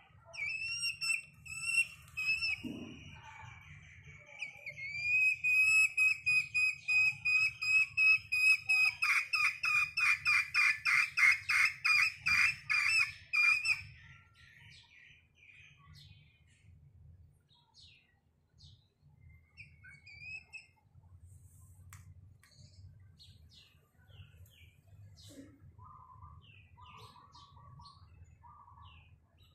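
A young chicken calling with high, clear, whistle-like notes: two short calls about a second in, then from about five seconds a long run of rapidly repeated notes, about four a second, that stops about fourteen seconds in. Fainter chirps and a few soft lower notes follow.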